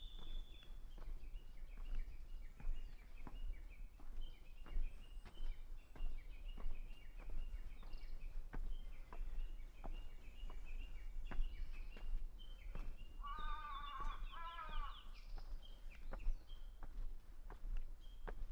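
Japanese bush warblers calling: a long run of short, quickly repeated high notes, with a louder wavering call partway through. Scattered sharp ticks sound throughout.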